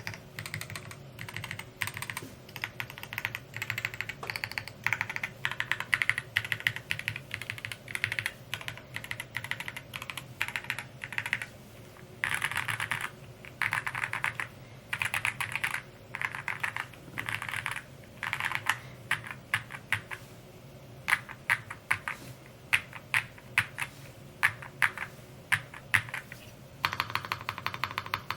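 Typing on a Rainy75 mechanical keyboard with an aluminium case: fast runs of keystrokes with short pauses between them, turning to slower, separate strokes in the later part, then a fast run again near the end.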